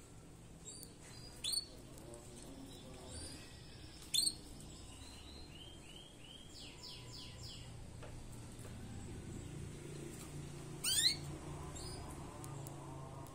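Caged songbird chirping in short, sharp calls: single high notes about one and a half and four seconds in, a quick run of repeated notes around six to seven seconds, and the loudest, a fast trilling call near eleven seconds.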